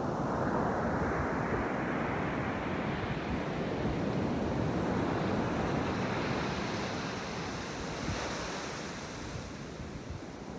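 Ocean surf breaking and washing up the beach, a rushing wash that swells at the start and eases toward the end, with wind buffeting the microphone.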